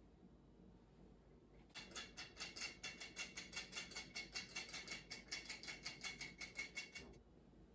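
Metal flour sifter sifting powdered sweetener: a rapid, rhythmic metallic rasp of about seven strokes a second. It starts about two seconds in and stops near the end.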